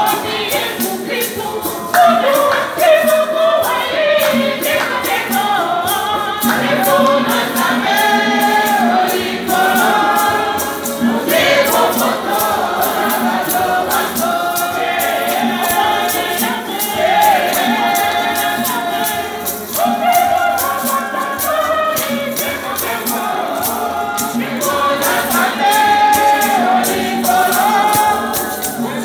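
Church choir singing a lively gospel hymn together, with a beaded hand rattle shaken in a steady beat.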